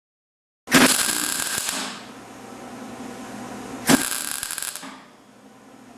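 Clarke 125EN MIG welder laying two short tack welds on thin sheet steel, each a loud crackling burst of about a second, the first about a second in and the second near the four-second mark, with a lower steady sound between them.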